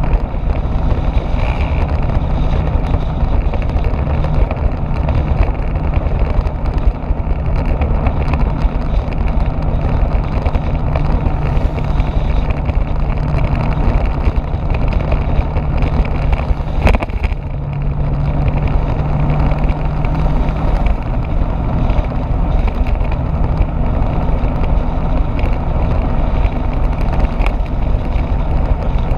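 Motorbike engine running steadily at cruising speed under heavy wind rush on the microphone. The sound dips for a moment, with a click, a little past halfway.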